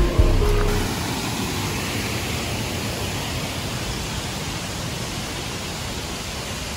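Steady rushing of a fast river over rocky rapids, an even hiss of water. A little music ends within the first second.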